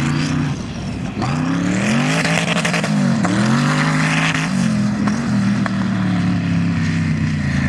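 Twin-turbo LS V8 of a sand rail running under hard throttle: the engine pitch climbs, dips briefly about three seconds in, climbs again and then holds steady.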